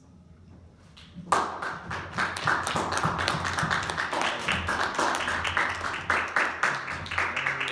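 Congregation applauding, starting about a second in: many hands clapping quickly and evenly.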